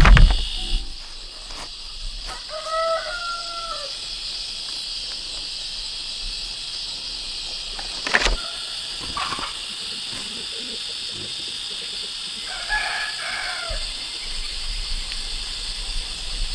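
Rooster crowing twice, once a few seconds in and again near the end, over a steady high insect-like hiss, with a couple of sharp knocks.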